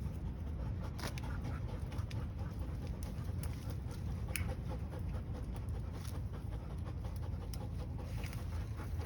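A person breathing hard while climbing through branches, with rustling and scattered small snaps of twigs.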